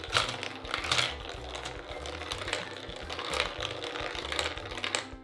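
Plastic spiral-tower gumball machine in use: its knob is turned with sharp clicks, then gumballs rattle and clatter as they roll down the plastic spiral track.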